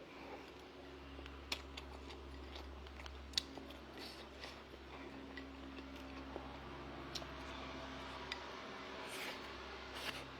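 Faint, scattered small clicks and taps, a few sharper ones standing out, over a steady low hum.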